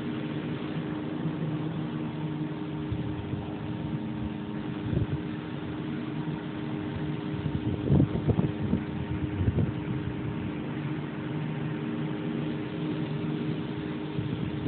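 Steady low machine hum with a few soft bumps and rustles around the middle.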